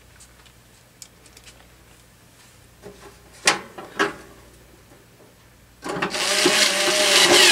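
Two sharp knocks on a sheet-metal heater cabinet, then a loud grinding rasp for about a second and a half near the end as a screwdriver works at a screw in the case.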